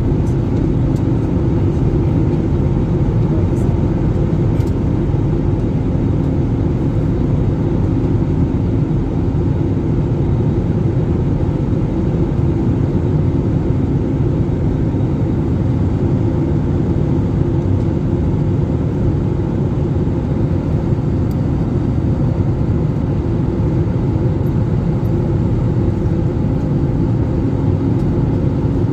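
Steady cabin noise of an airliner in flight: the engines and rushing air make an even, loud rumble with a few low steady tones in it.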